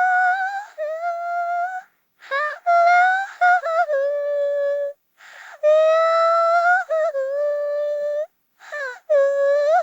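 A high-pitched voice crying in four long, drawn-out wails. Each one starts with a breathy gasp, and they are separated by short silent gaps.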